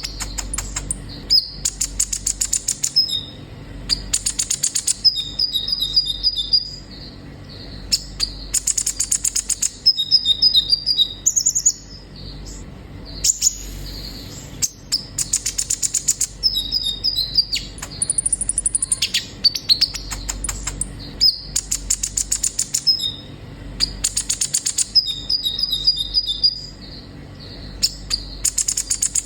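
Sunbird song: bursts of very rapid, high chattering trills alternating with short thin whistled notes. The same sequence comes round again about every ten seconds, as in a looped recording.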